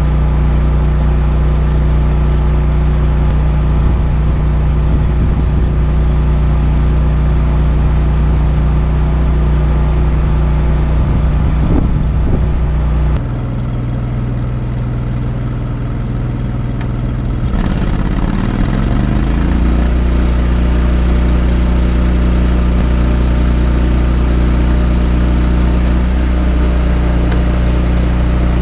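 Engine of an engine-driven welding machine running steadily. About 13 seconds in the hum drops in level, and around 18 seconds its pitch dips and climbs back before it settles into a steady run again.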